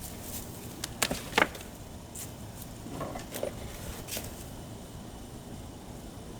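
A few short, sharp knocks, two close together about a second in and a fainter one about four seconds in, over steady outdoor background noise.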